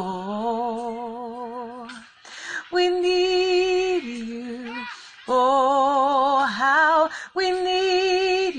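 A woman singing a slow worship chorus alone with no instruments, holding long notes with a wavering vibrato, in several phrases with short pauses between them.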